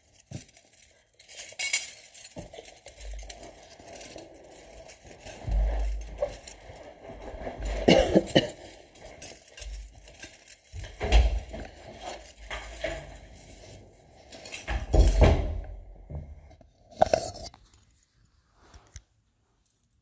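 Gold-toned silver jewellery clinking and jingling irregularly as bangles and chains are handled and moved about, with a few dull knocks; it stops shortly before the end.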